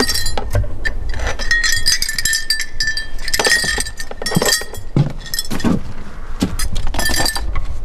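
Small metal pieces clinking and jangling in irregular bursts as dance regalia is handled and packed into a suitcase.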